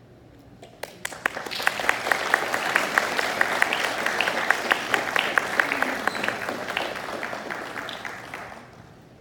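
Audience applauding in a large hall, with a few loud, sharp claps close by. It starts about a second in, swells, and dies away near the end.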